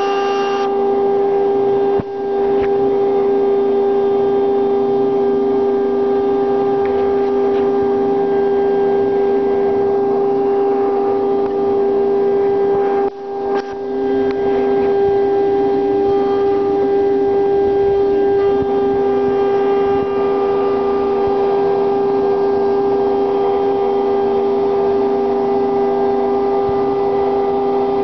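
CNC router spindle running at speed with a steady high whine while its bit carves a wooden log turned on the rotary axis, the sound dipping briefly twice.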